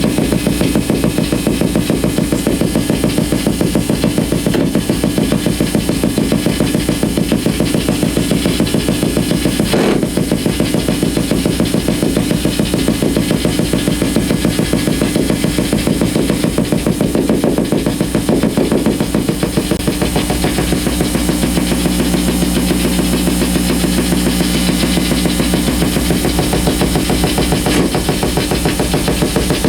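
Amplified electrical bursts from compact fluorescent bulbs flickering on dimmer switches, which cannot properly dim them, picked up by exposed guitar cables and left unprocessed. The result is a loud, fast, dense percussive pulsing with one sharp crack about a third of the way in, and low steady hum tones joining about two-thirds through.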